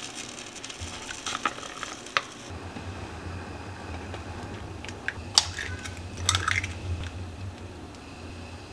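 Cooking sounds: a utensil stirring and scraping in cookware, with scattered sharp clinks, the loudest about five and a half and six and a half seconds in. A low steady hum comes in a couple of seconds in.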